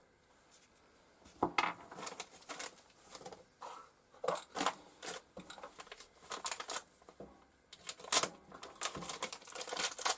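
Irregular clinks and knocks of steel quick-change tool post parts being handled and set down, mixed with rustling of their packaging, the sharpest knocks about a second and a half in and around eight seconds in.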